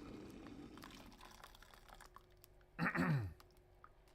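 Faint scattered clicks and light taps from handling small objects at a work surface, with a short falling vocal sound from a person about three seconds in. A faint steady hum comes in about two seconds in.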